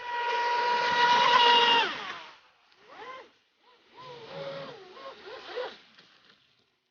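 ProBoat SonicWake RC boat's brushless motor whining at high speed, a steady high tone that drops in pitch and fades as the boat slows about two seconds in. Faint voices follow.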